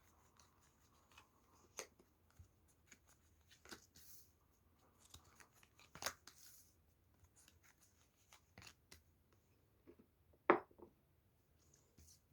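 Tarot cards being shuffled and handled: faint scattered snaps and rustles of the cards, with a louder snap about six seconds in and another about ten and a half seconds in.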